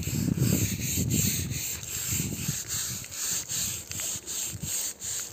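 Stiff plastic scrub brush scrubbing a wet, soapy carpet in repeated, irregular rough strokes.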